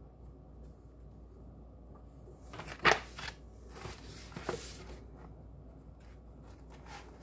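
A short run of crisp rustling and handling sounds, the loudest a sharp one about three seconds in, with a few fainter ones near the end.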